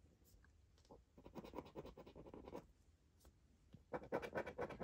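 A scratchcard's coating being scratched off in quick, faint strokes: one spell about a second in and another near the end.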